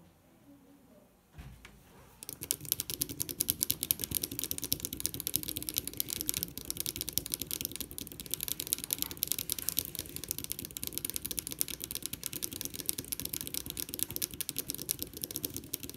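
Two players rapidly pressing small tactile pushbuttons on breadboards, a fast irregular clatter of clicks starting about two seconds in: each racing to press their button 50 times.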